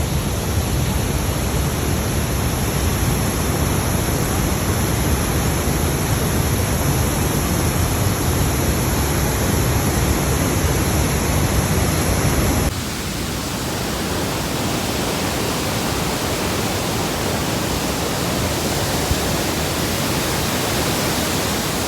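Steady rush of a large waterfall, Elephant Falls, with a deep rumble under a wide hiss. About halfway through it changes abruptly, losing much of the rumble and turning hissier.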